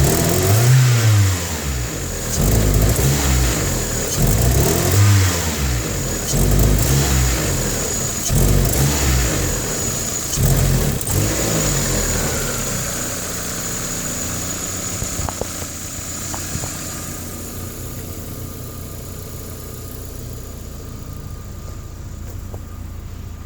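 1995 Geo Prizm's 1.8-litre four-cylinder engine being revved in repeated throttle blips, one rise and fall every couple of seconds, then settling into a steadier, quieter running about halfway through. This is the engine that the owner reports as hard-starting and stalling.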